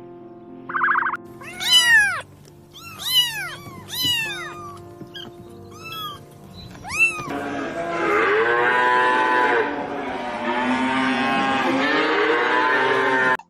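Cats meowing: a few separate meows, then from about seven seconds in many meows overlapping at once, until the sound cuts off abruptly near the end.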